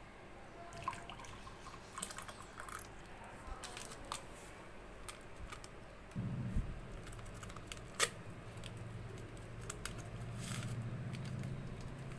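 Small clicks and handling noises as a flask is tipped over a mug and a green tea sachet is handled and opened, with one sharp snap about eight seconds in. A low steady hum comes in about six seconds in.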